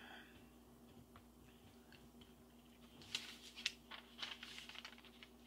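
Glossy magazine pages being handled and turned: a short run of crinkly paper rustles about three seconds in, over a faint steady hum.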